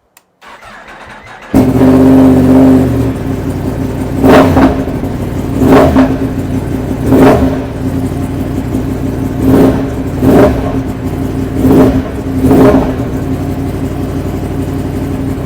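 Yamaha MT-10SP's crossplane inline-four, breathing through a cat-delete link pipe and the standard muffler, fires up about a second and a half in and settles to idle. It is then revved seven times in quick blips. The exhaust is loud and throaty.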